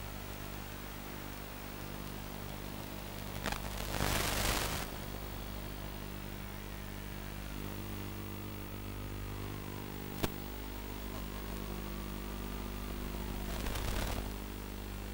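Steady electrical hum and hiss, with two louder bursts of static, one about four seconds in and one near the end, and a single sharp click after about ten seconds. Faint tones slowly rise and fall in pitch underneath.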